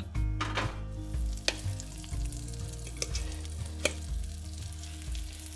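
Pancake batter sizzling as it fries in hot fat in a cast-iron skillet, the sizzle starting about half a second in. A few sharp clicks of a metal fork against the pan.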